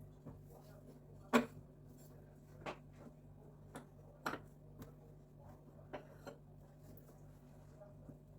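Light, scattered knocks and clicks of small objects being handled and set down, the loudest about a second and a half in, over a steady low hum.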